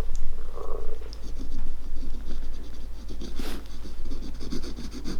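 Scratching and rubbing of hands working on a shoe as the glued part is pushed and pressed into place, with one brief, sharper scrape about three and a half seconds in.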